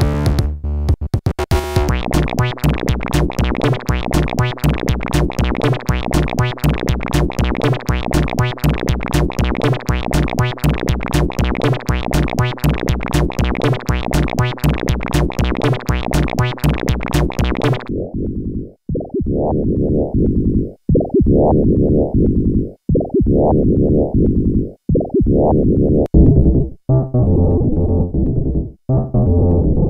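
Dark experimental electronic music on synthesizers: a dense pattern of fast, evenly repeating pulses, which about eighteen seconds in gives way to a lower, muffled synth line of swelling notes broken by short gaps.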